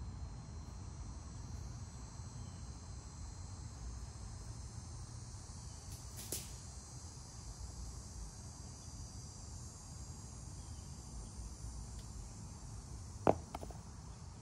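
Steady high-pitched insect chorus over a low outdoor rumble. About a second before the end, a golf disc lands on the packed dirt with a sharp thud and a small second knock as it bounces.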